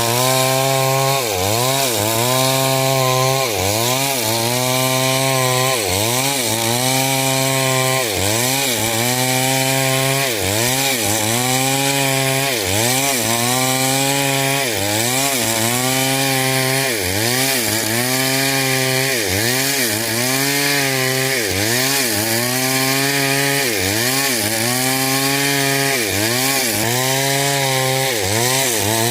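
Stihl chainsaw cutting coconut hardwood under load. The engine pitch dips and recovers again and again, about once a second.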